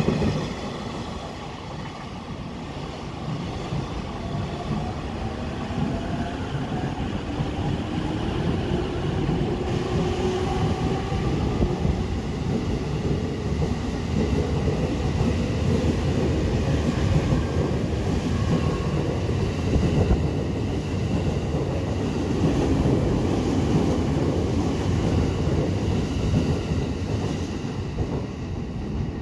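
Freight train running on the rails: a steady, loud rumble of wheels and cars, with a faint whine rising in pitch partway through.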